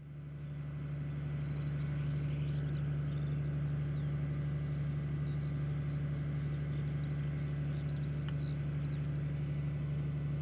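Steady low hum of an idling engine, fading in at the start and holding level throughout.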